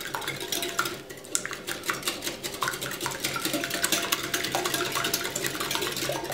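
Wire whisk beating runny wet batter ingredients in a glass mixing bowl: a fast, continuous, uneven clicking of the wires against the glass.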